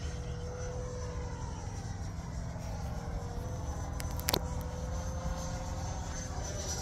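Electric ducted fan of an RC jet running in flight overhead, a steady whine over a low rumble. One sharp click about four seconds in.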